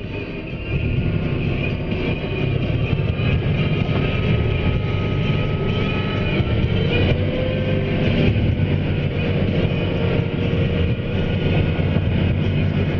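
Mack Granite truck's diesel engine running steadily under way, with a faint whine that rises and falls in pitch.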